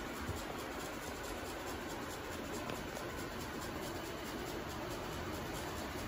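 Many ceiling fans running together: a steady, even rush of air from the spinning blades, with no distinct clicks or changes.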